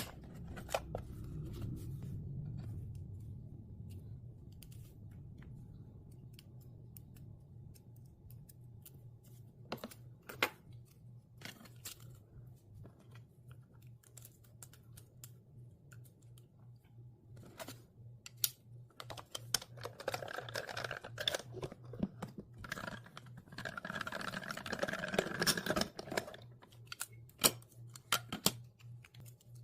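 Scattered clicks and handling noises of small hard parts, with two longer rattling passes of about two seconds each past the middle, over a steady low hum.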